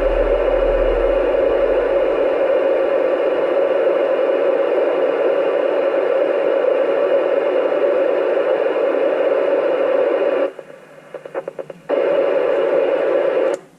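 Static hissing from the Yaesu FT-991A transceiver's speaker while it listens on the ISS repeater downlink with no readable signal. The hiss cuts out about ten and a half seconds in, leaving a few short crackles, then returns for the last couple of seconds.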